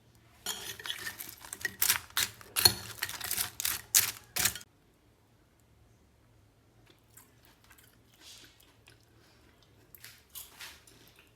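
Crisp, crackling crunches of chips for about four seconds, then quiet, with a few fainter crunches near the end.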